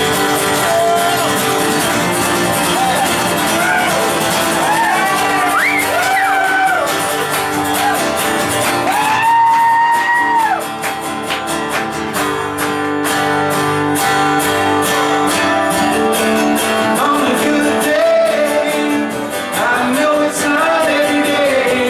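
Two acoustic guitars played together in a live duo performance, with a man singing over them, including a long held high note about nine seconds in.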